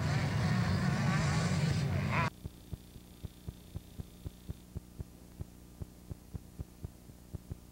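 Trackside motorcycle engines and voices that cut off abruptly about two seconds in, leaving a low electrical hum with faint ticking about four times a second as the recording ends.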